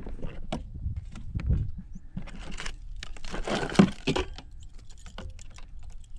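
Hands rummaging through gear in a plastic kayak for a pair of pliers: scattered clicks and knocks, with a louder rustling scrape about three and a half seconds in.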